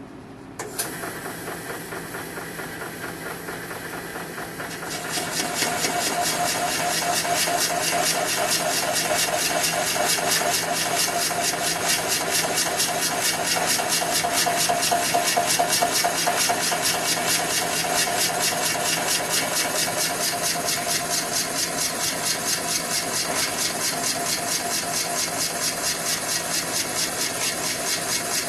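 1927 Cadillac 314 V8 engine being started: it cranks for about four seconds, then catches and runs steadily with an even pulse.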